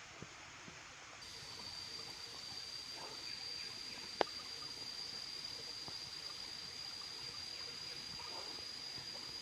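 Waterfall stream water trickling and running over rocks, a little louder from about a second in. A steady high-pitched whine comes in at the same moment, and there is one sharp click a little after four seconds.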